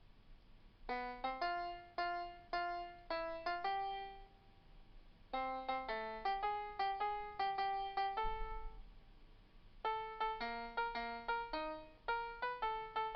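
Synthesized piano playing a single-note melody converted to MIDI from a sung tune, a few detached notes a second in three short phrases with brief pauses between them.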